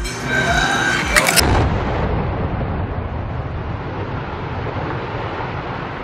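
A short crunchy bite about a second in, followed by a long, heavy low rumble of a high-rise building collapsing in a demolition, slowly dying down.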